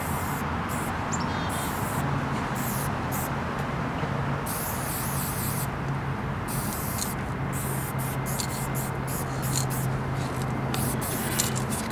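Aerosol spray paint can hissing against a wall in short, irregular bursts as black outlines are sprayed, over a steady low hum.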